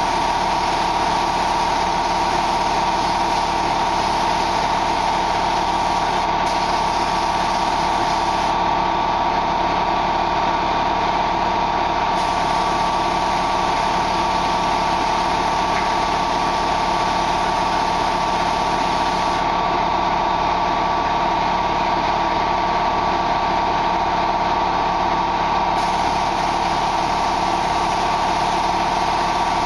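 Spray-painting air equipment running steadily with a constant droning whine. A high hiss cuts out and comes back several times over it.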